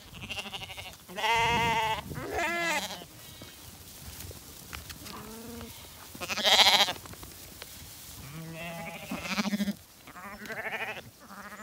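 Zwartbles lambs bleating, about half a dozen quavering calls from different animals as the flock crowds in close. The loudest and highest call comes about halfway through, with a deeper bleat near the end.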